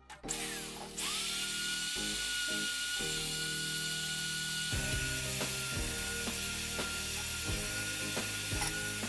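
Electric drill starting up about a second in and running steadily with a constant high motor whine, its sanding attachment rasping against the inside of a steel ring.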